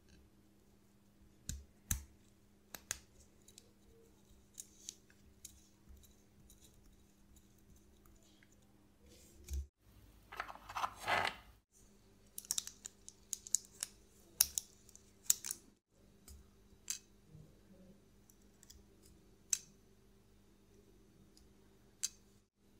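Light, scattered clicks and taps of small steel watchmaker's tools (hand levers and tweezers) against a watch dial and movement as the hands are levered off and set down. About ten seconds in there is a brief rustle of a plastic sheet laid over the dial.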